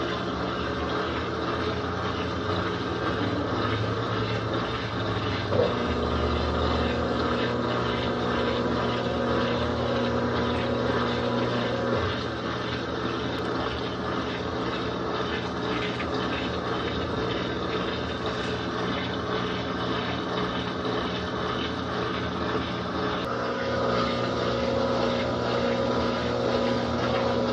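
Laundry machine's electric motor running with a steady hum and mechanical whir, shifting slightly in tone a few times.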